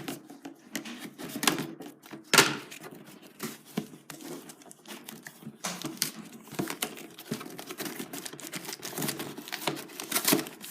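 A toy's packaging being handled and opened: crinkling and tearing with a dense, irregular run of crackles and clicks, the loudest about two seconds in.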